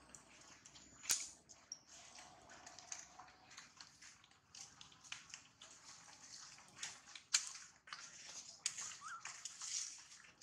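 Faint crackling and rustling of dry leaf litter with scattered sharp clicks as macaques shift and move about on the ground. A short rising squeak comes about nine seconds in.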